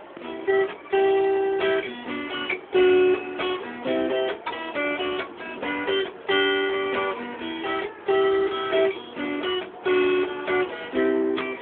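Strummed guitar chords in a song's instrumental opening, a repeating chord pattern with strong accents about every second.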